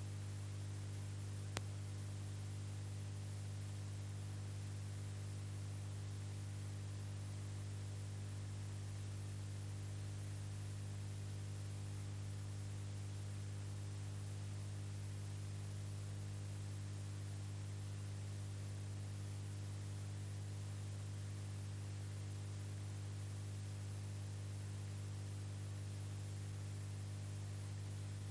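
Steady electrical hum with hiss and no recorded sound, since the footage is silent; a single faint click about a second and a half in.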